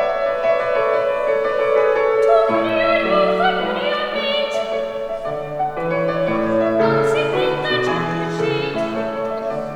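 Boys' choir singing a classical song with keyboard accompaniment; lower accompanying notes come in about two and a half seconds in.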